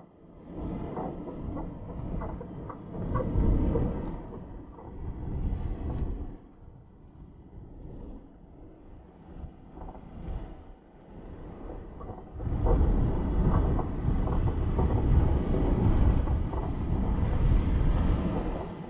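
A car driving, its road and tyre noise mixed with wind on the microphone, louder from about two-thirds of the way through.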